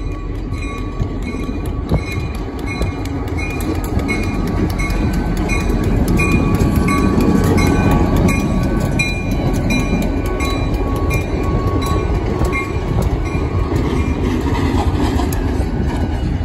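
EMD SD40-2 diesel locomotive passing close by, its 16-cylinder two-stroke engine running loudest about halfway through, with steel wheels rolling on the rails as the freight cars follow. A high chime repeats steadily under it and fades out near the end.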